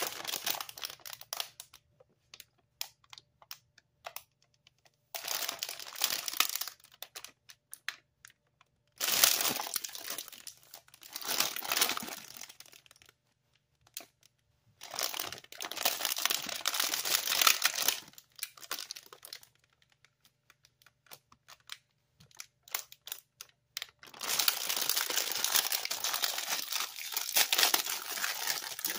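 Plastic cookie packaging crinkling in several bursts of rustling as it is handled and turned over, with scattered small crackles between. Near the end the clear inner plastic wrapping crinkles as it is pulled open.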